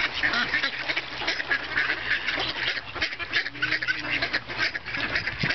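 A flock of mallard ducks quacking, many short calls overlapping without a break.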